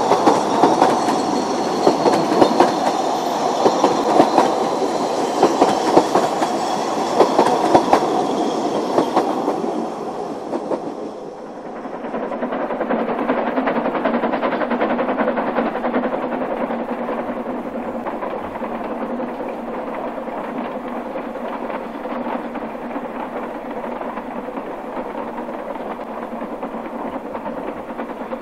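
Narrow-gauge steam train carriages rolling past close by, their wheels clattering with sharp knocks over the rail joints. About eleven seconds in the sound drops away and gives way to a steady, even noise of a small steam locomotive working hard further off.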